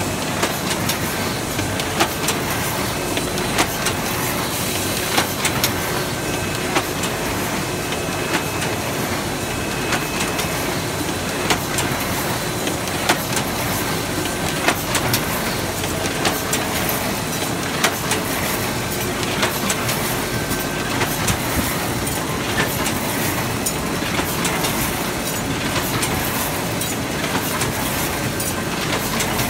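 Fang Bang ZD-QFP20 fully automatic square-bottom paper bag machine running: a steady mechanical clatter from its rollers, drums and belts, with many short sharp clicks throughout.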